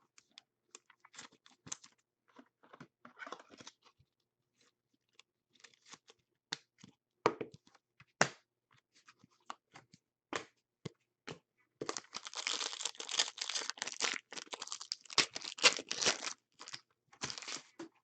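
Trading cards being handled with light scattered clicks, then a foil card pack being torn open and crinkled for about five seconds.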